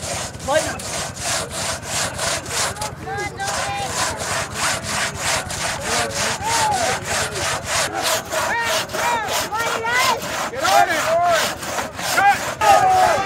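Two-person crosscut saw cutting through a large log, pulled back and forth in quick, even strokes at about three a second. On some strokes a ringing note rises and falls.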